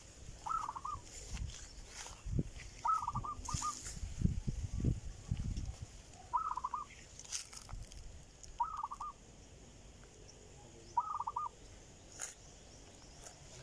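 A rail (tikling) calling: a short burst of quick notes, repeated about five times at two- to three-second gaps. Footsteps and rustling through grass sound in the first half.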